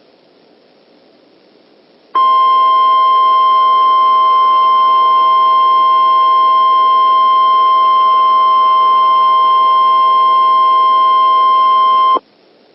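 Emergency Alert System attention tone: a loud, steady electronic alarm tone pitched just above 1 kHz. It comes in abruptly about two seconds in, holds unchanged for about ten seconds and cuts off sharply, signalling that an emergency message follows. Low radio hiss sits before and after it.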